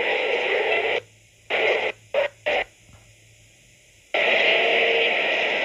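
Loud, harsh hiss from an old videotape soundtrack. It cuts out about a second in, comes back as a few short bursts, then returns in full about four seconds in.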